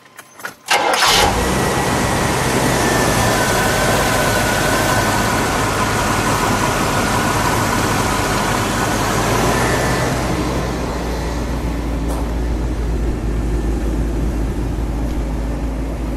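1978 Chevrolet Corvette's small-block V8 cranking briefly and catching about a second in, then running steadily, settling slightly quieter after about ten seconds.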